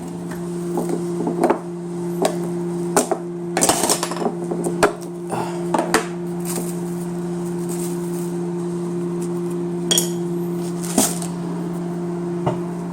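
Metal cutlery and kitchen utensils clinking and clattering as a cluttered kitchen drawer is rummaged through, a string of sharp clicks that is busiest in the first half and has a few more near the end. A steady low hum runs underneath.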